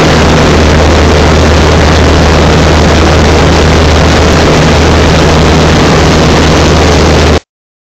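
Light aircraft's engine and propeller running steadily, heard from inside the cabin in flight: a loud, even drone over a constant low hum. It cuts off suddenly about seven and a half seconds in.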